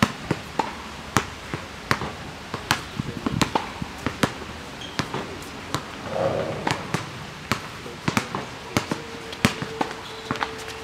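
Basketball dribbled on an outdoor asphalt court: sharp, irregular bounces, about one to two a second.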